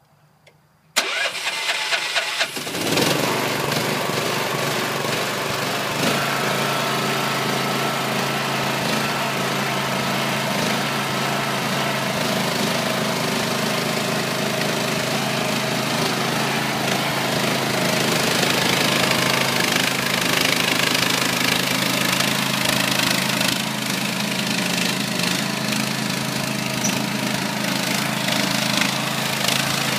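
13 horsepower Honda single-cylinder engine on a mini excavator being cranked over with a few quick pulses, catching about three seconds in, then running steadily.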